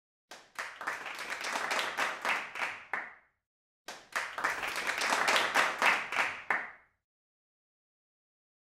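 Applause: a small group clapping in two bursts of about three seconds each, the second starting about four seconds in.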